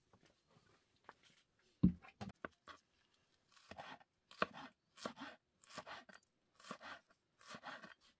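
Knife chopping food on a cutting board: a few light knocks and one heavier thud about two seconds in, then a steady run of chops, a little over one a second.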